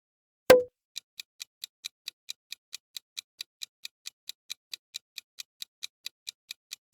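Countdown-timer sound effect: a single sharp click, then even clock ticks at about four to five a second, counting down the time to guess.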